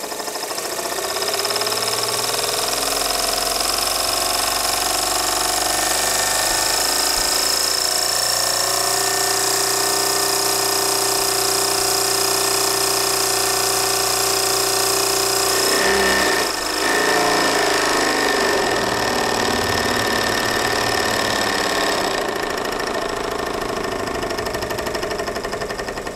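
Bowman-Bryant BM valveless marine steam engine running fast under steam, a steady rapid mechanical beat with steam hiss. It picks up speed over the first couple of seconds, shifts its note about two-thirds of the way through, and eases off slightly near the end.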